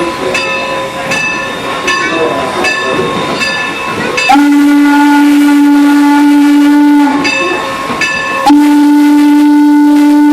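A bell rings steadily, and then a steam locomotive's whistle blows two long blasts, the second still sounding at the end.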